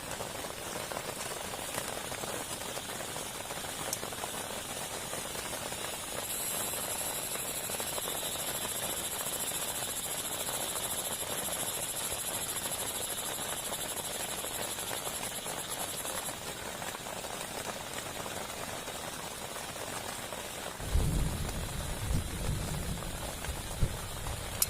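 Steady heavy rain falling. For about ten seconds in the middle, a high-pitched, evenly pulsing buzzing call from a frog or insect runs over the rain. Near the end, a low rumble sets in suddenly with a few loud jolts.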